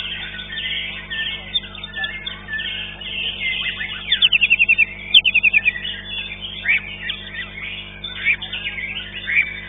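White-rumped shama (murai batu) singing a varied, continuous song among other caged birds calling at a songbird contest, with a quick trill of repeated notes about four seconds in.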